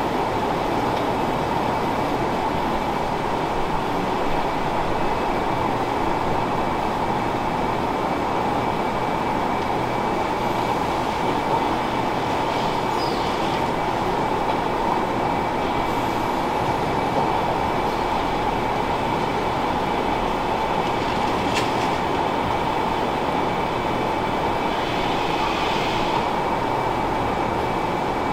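Steady hum and hiss of milking-parlour machinery, the vacuum and milking equipment running without a break during milking.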